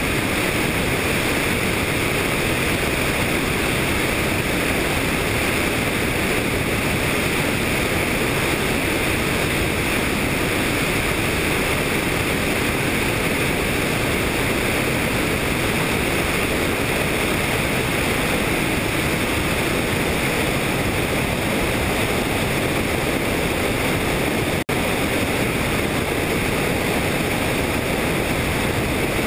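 Steady, loud rushing noise of a helicopter in flight: wind over the camera microphone mixed with engine and rotor noise, with a momentary dropout about 25 seconds in.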